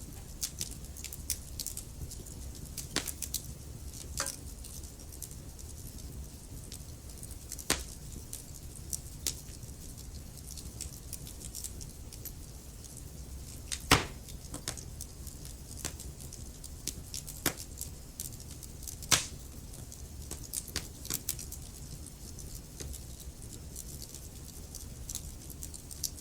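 Wood fire in a fireplace crackling, with scattered small snaps and a few louder pops over a low steady rumble of the flames.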